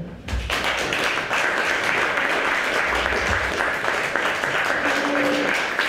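Audience applauding, breaking out suddenly just after the start and going on steadily.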